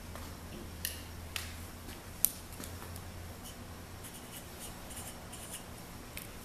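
Light clicks and taps from small hand tools and a marker pen being handled at a workbench, the sharpest about two seconds in, followed by faint scratchy ticks. A steady low hum sits underneath and fades out partway through.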